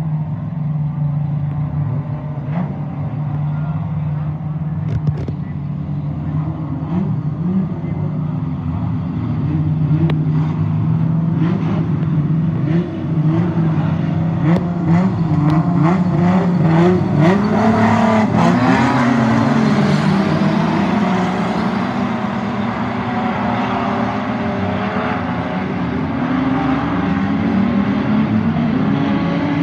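A field of standard saloon speedway cars, several engines running together. The engine sound grows louder from about a third of the way in, with engines revving up and down as the pack comes past, and there are scattered sharp ticks.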